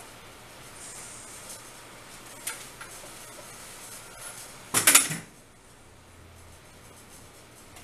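Small hard parts and tools handled on a work surface during a tablet repair: light clicks and rustling, one sharp click about two and a half seconds in and a louder brief clatter about five seconds in.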